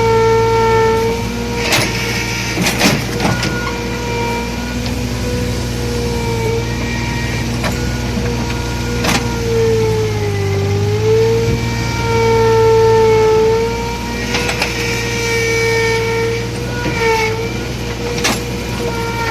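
Komatsu excavator running, its engine humming low under a steady high whine that sags in pitch and recovers about ten seconds in as the machine takes load, with a few sharp metal clanks along the way.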